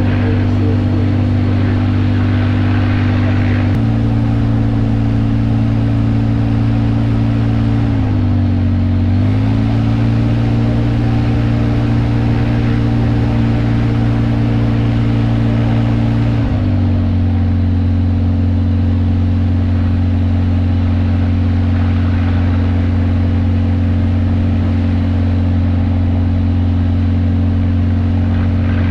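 Kitfox light aircraft's engine and propeller running steadily, with the power raised about four seconds in, briefly dipped and restored around eight to nine seconds, and reduced about sixteen seconds in.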